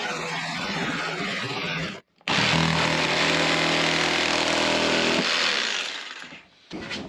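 Ryobi 18 V cordless jigsaw cutting through a board template in two stretches, with a brief break about two seconds in. The second stretch is louder and steadier, then the saw winds down and stops about a second before the end.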